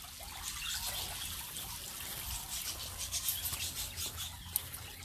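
Water splashing and trickling from the bubbling fountain in a stock-tank koi pond, with small birds chirping in the second half.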